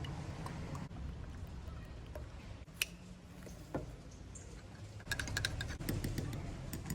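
Scattered small clicks and taps, one sharp click about three seconds in and a quick run of them near the end, over a low steady rumble.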